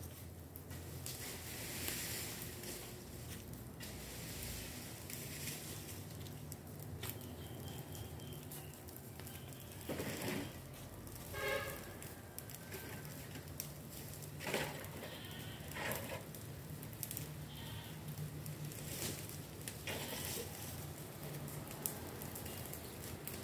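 An animal calling a few times around the middle, each call short, over steady outdoor background noise.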